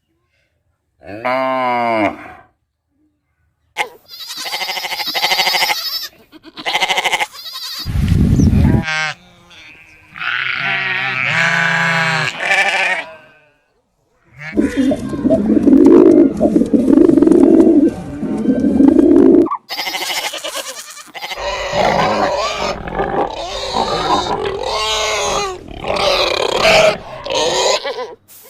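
A string of different animal calls, one short clip after another, with brief silent gaps between some of them: drawn-out pitched calls alternate with rougher, noisier grunting and roaring sounds.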